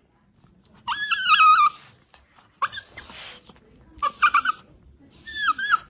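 An animal making four high-pitched whining calls, each about half a second to a second long, with short gaps between them.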